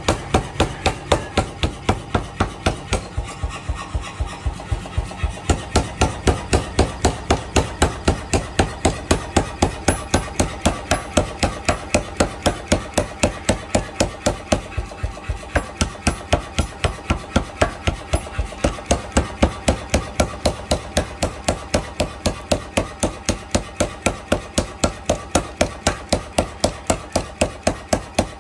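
Power hammer forging a red-hot steel bar: its ram strikes the hot metal on the anvil die in a fast, even rhythm of about three to four blows a second, with the machine running steadily between blows.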